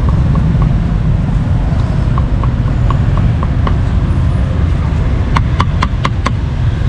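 Meat cleaver chopping grilled pork and beef on a chopping block: light regular taps about four a second in the middle, then six sharp chops in quick succession near the end. Under it a steady low rumble of street traffic.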